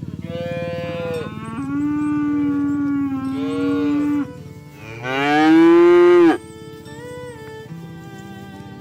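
Cattle mooing: a short call, then a long low moo, then the loudest moo about five seconds in, each drawn out and pitched.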